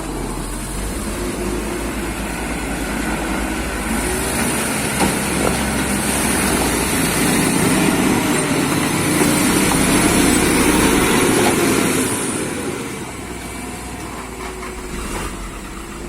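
Heavy diesel engine running. About four seconds in it revs up and holds high, with a high whine over it, then drops back to a lower, steady run around twelve seconds.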